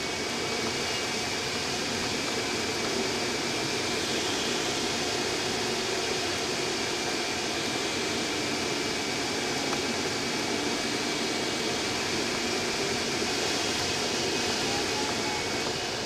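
Steady rush of air streaming over the canopy of a Speed Astir sailplane, heard inside the cockpit of the engineless glider in flight, with a faint steady high tone running through it.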